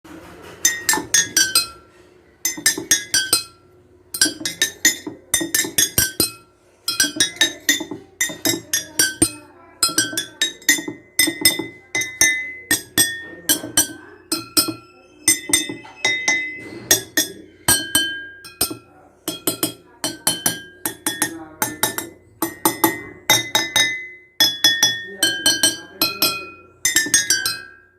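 Glasses filled with different amounts of water struck in quick runs, each strike ringing a clear note at its own pitch. The notes step downward in short phrases with brief pauses between them, playing a simple tune.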